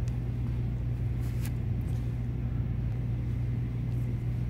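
Steady low background hum with a few faint clicks, one near the start and some about a second and a half in.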